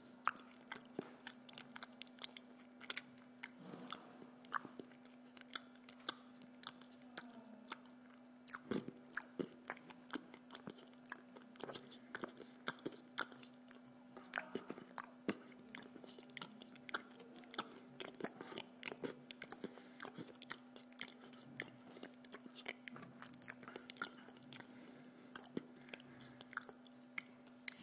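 A person chewing food: frequent irregular short clicks and crunches of the mouth at work, over a steady low hum.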